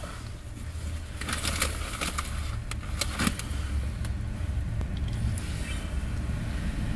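Low, steady rumble of an approaching diesel freight train, slowly growing louder, with a few sharp clicks about one to three seconds in.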